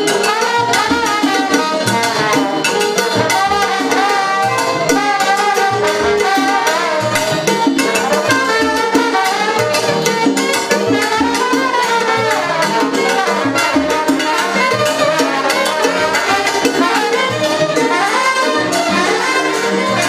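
Live salsa big band playing: brass lines with a trombone among them, over Latin percussion.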